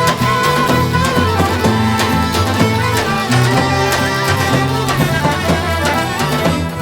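Albanian folk music from a live ensemble: an ornamented lead melody over a dense accompaniment and a steady drum beat.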